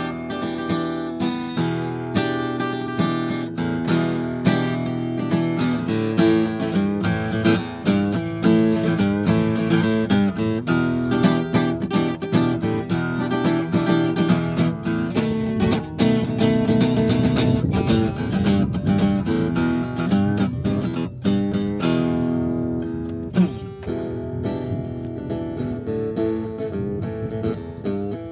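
Acoustic guitar played solo: strummed chords and picked notes in a continuous instrumental piece.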